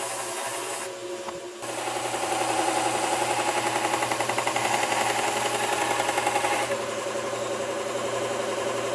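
1x30 belt sander running with a steady hum while a steel chisel bevel is ground against the moving belt. From about two seconds in until near seven seconds the grinding is louder and pulsing, then it settles back to a steadier run.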